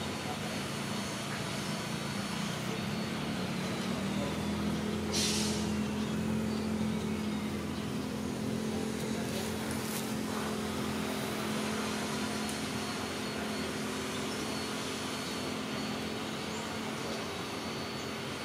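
A distant engine drone over a steady outdoor hiss, swelling about a third of the way in and then slowly fading, with a short hiss about five seconds in.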